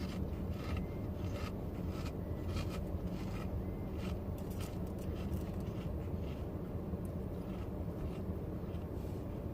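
Steady low hum of a car interior, with light rustling and crinkling scattered through.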